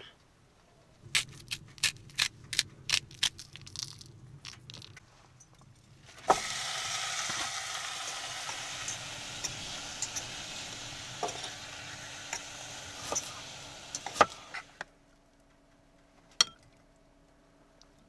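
A run of sharp clicks and knocks, then meat sizzling in a stainless steel saucepan on a small wood-burning stove, with the taps and scrapes of a spatula stirring it. The sizzle starts suddenly about six seconds in and cuts off about fifteen seconds in.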